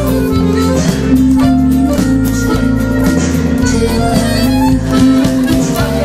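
Dance music playing: long held melody notes over a bass line that moves in steps.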